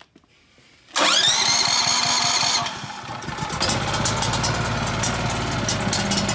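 Champion portable generator's electric starter cranking the engine with a rising whine for about a second and a half, then the engine catching and running on propane with a steady sound and rapid ticking.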